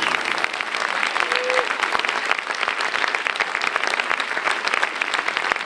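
Audience applauding, dense steady clapping at the end of a stage show.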